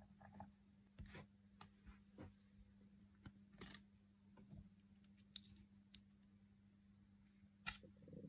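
Near silence: a steady low hum with faint, scattered clicks and light taps at irregular times.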